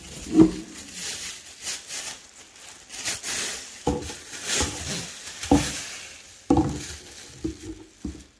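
Plastic packaging bag crinkling and rustling as it is handled in a cardboard box, with a few dull knocks.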